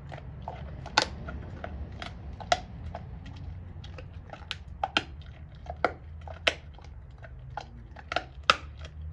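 A Doberman gnawing a raw pork bone: irregular sharp cracks and crunches of teeth on bone, with about half a dozen louder cracks spread a second or more apart.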